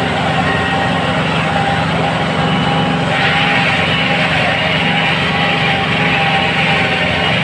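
Compact farm tractor's diesel engine running steadily under load while tilling a field, heard from on the tractor itself. A harsher, higher hiss joins the engine sound about three seconds in.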